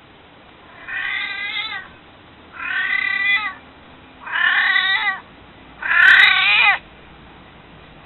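An elderly house cat, nearly 22 years old, meows four times, begging to be picked up and held. The calls come evenly spaced, each a little louder than the one before, and each drops in pitch at its end.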